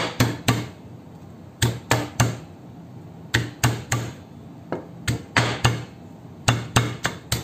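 Stone pestle pounding shallots and garlic in a black stone mortar: sharp knocks in quick groups of three or four, a group about every second and a half.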